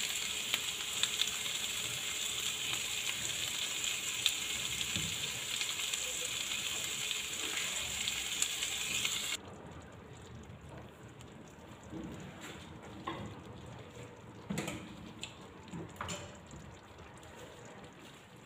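Chicken breast and sliced onions sizzling in a frying pan, a steady crackling hiss. About nine seconds in the sizzling stops abruptly, and the pan, now holding cream sauce, is much quieter, with a few light knocks and clinks.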